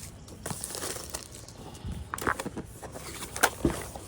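Cardboard box and packaging being handled during an unboxing: scattered rustles, taps and knocks, with a few louder knocks in the second half.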